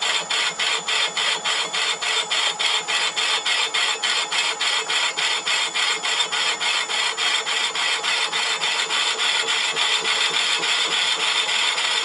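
Myford ML7 lathe facing a cast flywheel on the faceplate: a lathe tool cutting the metal with a steady scraping sound that pulses about four to five times a second.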